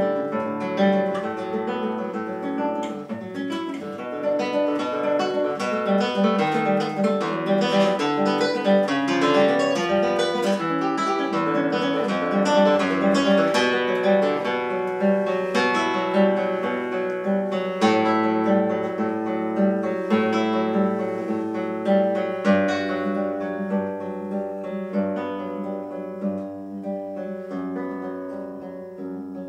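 Nylon-string classical guitar played solo, fingerpicked: a melody over bass notes and chords, getting softer near the end.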